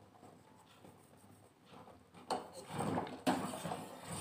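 Steel ladle stirring thickened milk in a steel pot, scraping and knocking against the pot. It starts about halfway through with a sharp clink, with another clink a second later.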